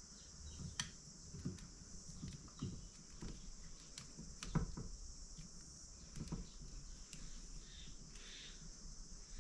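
Faint scattered clicks and light knocks from small parts being handled and fitted, over a steady high-pitched drone of insects.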